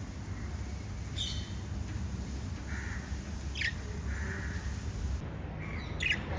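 Pet lovebirds giving a few short, sharp chirps a couple of seconds apart, two close together near the end, over a steady low hum.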